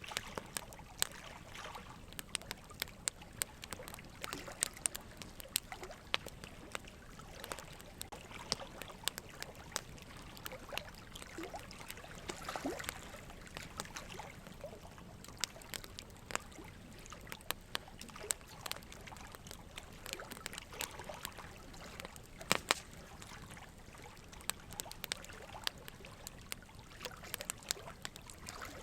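Steady soft ambient noise with many small, irregular clicks and crackles scattered through it, one sharper click about three-quarters of the way in.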